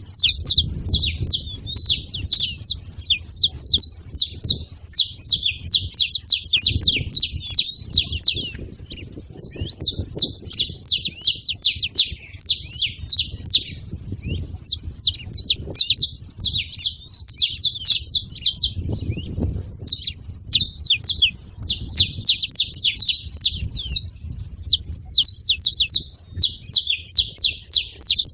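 A flock of saffron finches chirping busily at a feeding spot: many quick, overlapping high chirps in long runs, broken by brief pauses about every five to six seconds, over a faint low rumble.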